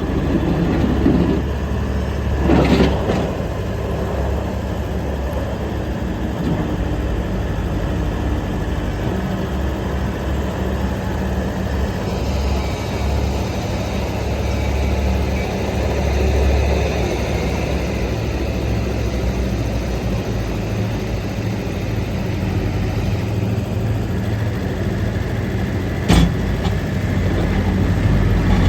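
Skid steer loader's diesel engine running steadily, with a brief louder swell about three seconds in and one sharp knock near the end.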